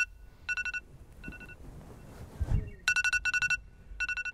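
Electronic alarm beeping in quick bursts of high beeps, a wake-up alarm going off. A soft low thump comes about halfway through.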